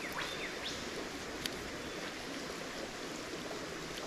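Steady outdoor ambience of a running bush creek, with a few faint short chirps and a single small click about one and a half seconds in.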